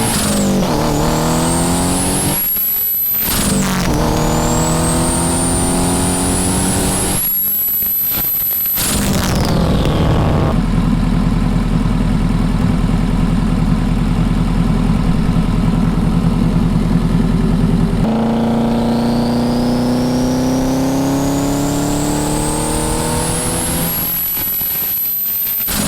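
Turbocharged car accelerating hard, its exhaust fitted with four turbo whistles. A high whistle climbs steeply in pitch with the engine on three pulls and cuts off abruptly each time the throttle lifts. A steady cruising drone with no whistle sits between the second and third pulls.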